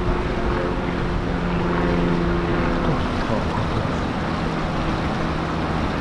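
A motorboat engine running steadily as a boat goes by, its hum fading about halfway through, over a steady wash of noise.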